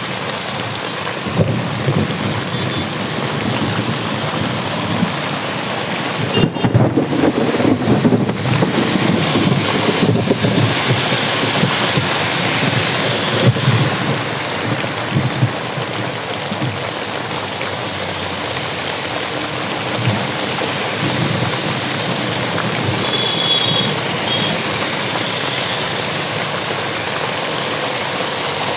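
Heavy rain pouring steadily with rolling thunder, which swells about a quarter of the way in, over a background of road traffic.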